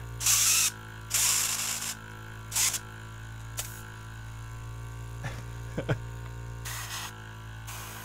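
Airbrush kit's mini air compressor running with a steady, noisy hum while the airbrush lets out hissing bursts of air. There are two longer bursts in the first two seconds, a couple of short ones, and another near the end, with a few light knocks from handling around the middle.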